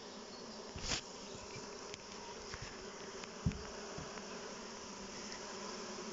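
A mass of honey bees, freshly poured out in front of a hive, buzzing steadily as they crawl in to settle it. A short knock about a second in and a sharp low thump a few seconds later.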